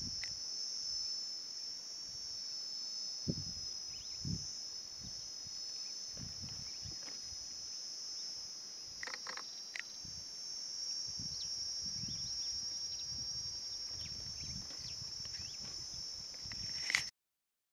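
Steady high-pitched chorus of insects trilling without a break, cutting off suddenly near the end.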